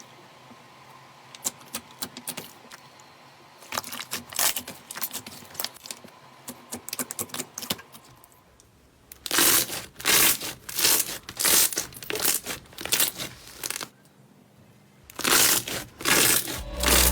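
Slime being squeezed and pressed by hand, making wet crackling and popping sounds. Faint at first, then a loud run of rhythmic squeezes about two a second, a short pause, and a few more squeezes.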